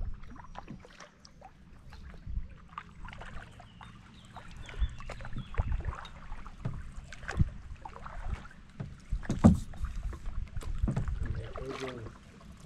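Double-bladed kayak paddle stroking through river water, dipping and splashing with scattered sharp knocks, over a low rumble of wind on the microphone.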